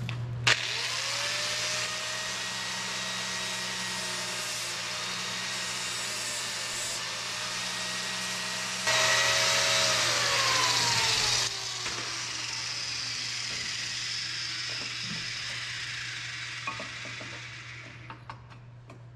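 Electric angle grinder with a flap disc grinding metal down to fit. It spins up about half a second in and runs steadily, gets louder while pressed harder into the work for a couple of seconds past the middle, then is switched off and whines down in pitch as it coasts to a stop.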